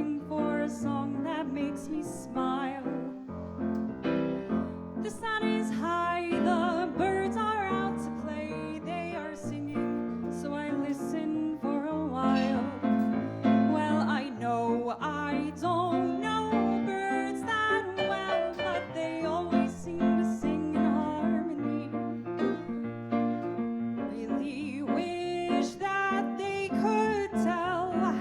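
Piano playing an instrumental passage of a song, with a wavering melody line above the chords.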